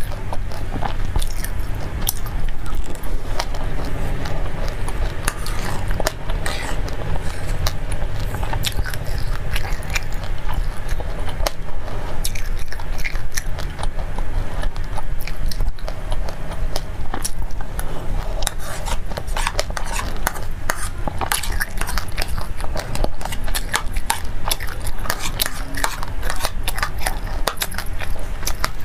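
Close-up chewing of a mouthful of black sesame seeds soaked in passion fruit juice: a dense, fast run of small crackling clicks as the seeds crunch between the teeth, mixed with wet mouth sounds, over a steady low hum.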